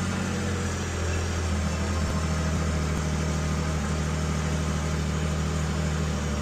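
Can-Am Maverick R's turbocharged three-cylinder engine idling steadily, run for a couple of minutes to warm the oil before draining it.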